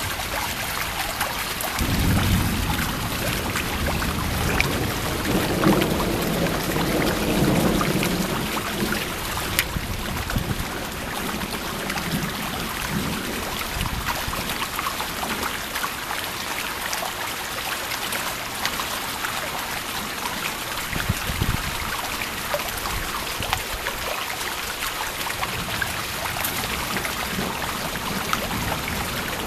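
Steady rain from a supercell thunderstorm, with a long roll of thunder rumbling from about two seconds in until about nine seconds in, then fainter low rumbles under the rain.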